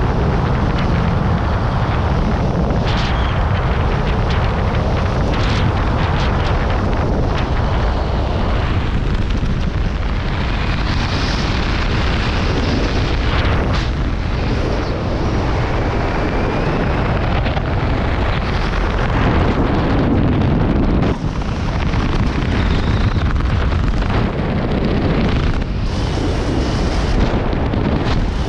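Loud, steady rushing rumble of wind buffeting the microphone, with a few brief sharper gusts or knocks.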